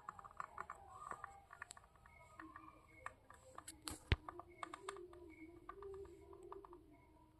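Faint, irregular clicking and ticking from an Indian ringneck parrot's beak and tongue, with one sharper click about four seconds in and a soft low murmur through the middle.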